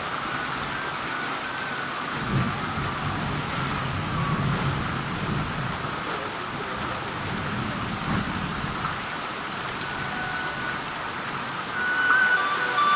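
Heavy rain falling steadily, with a long low rumble of thunder building about two seconds in and fading out before the last few seconds. Near the end a tune begins over the rain.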